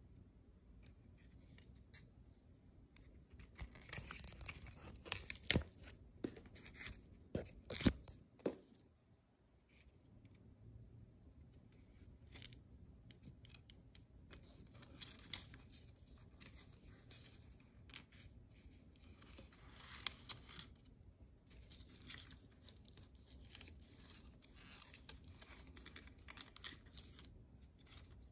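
Scissors snipping leaves off a basket plant cutting: a run of sharp snips about four to eight seconds in, the loudest part. Then a longer stretch of soft rustling as the leaves and stem are handled.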